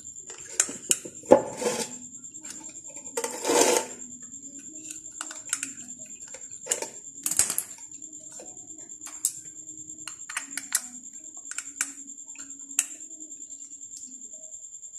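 Scattered clicks and knocks of a water-purifier booster pump and its plastic parts being handled and set on a wooden board during disassembly, with a longer scraping rustle about three and a half seconds in. A steady high-pitched whine sits underneath.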